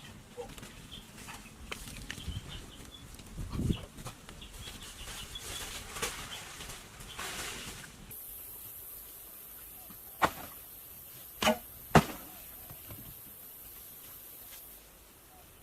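Rustling and small clicks of something being handled. Then, after a quieter stretch, three sharp knocks come close together about ten to twelve seconds in.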